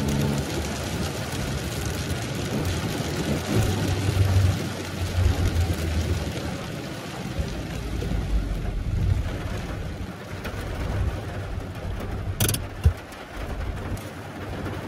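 Engine and road noise inside a lowered Tofaş car's cabin, a low rumble that swells and eases. A single sharp click sounds about twelve and a half seconds in.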